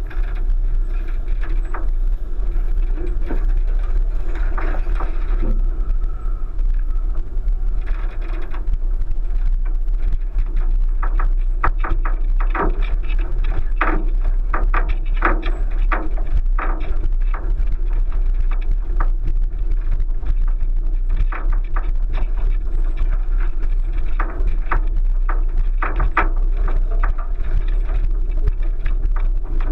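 A 1999 Subaru Forester driving over a rough, rutted dirt track, heard from a camera on its roof: a constant low rumble with many short knocks and clunks as the car jolts over the ground, thickest through the middle stretch.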